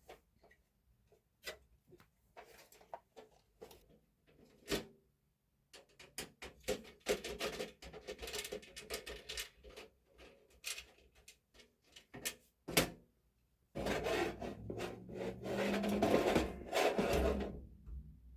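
Handling noises as PC case parts are worked on: scattered clicks and knocks, one sharp knock about thirteen seconds in, then several seconds of scraping and rubbing.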